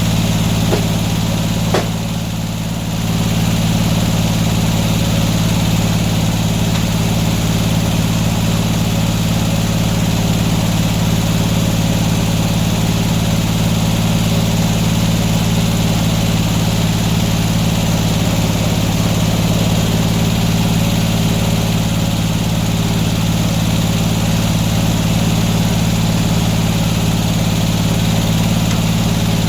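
Portable sawmill's engine running steadily, with a short dip in level and a couple of faint clicks about two seconds in.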